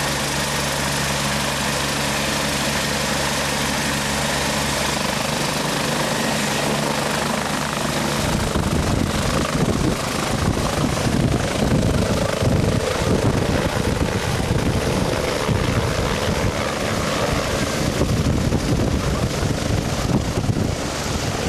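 Rescue helicopter's turbine and rotors running on the pad with a steady hum. About eight seconds in, it lifts off and the sound turns into a louder, pulsing rotor beat with gusty rotor wash.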